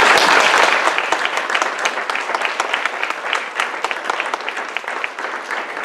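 Audience applauding, loudest at the start and easing off slightly.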